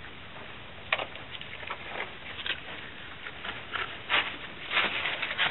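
Irregular scratchy rustling and light clicks in loose bedding, like something small moving and digging in it close by. The rustles come more often and louder from about four seconds in.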